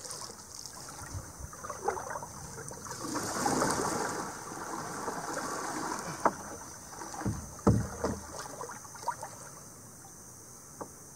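Canoe paddle strokes in the water: splashing and gurgling that builds to a peak a few seconds in, with several sharp knocks, the loudest a little past the middle.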